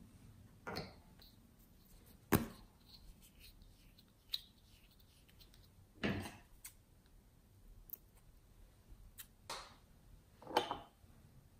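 Small plastic jars and toy figures being picked up and set down on a table: a handful of separate taps and knocks, the sharpest about two seconds in.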